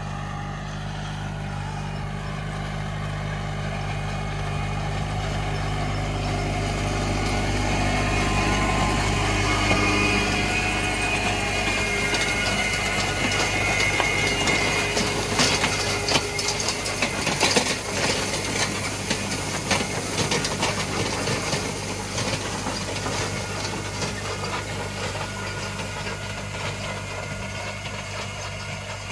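Tractor engine running steadily while it pulls an Enorossi CR850 wheel rake through cut hay, growing louder as it approaches. About halfway through, the rake's tined wheels rattle and clatter close by as they sweep the hay, and then the sound slowly fades.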